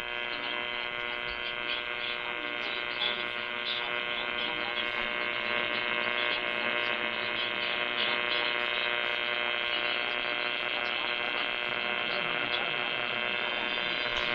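Emergency Alert System two-tone attention signal received over the radio: a steady, buzzy tone held without a break.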